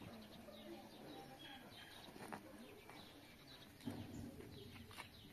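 Faint birdsong with a dove cooing low, over quiet outdoor ambience.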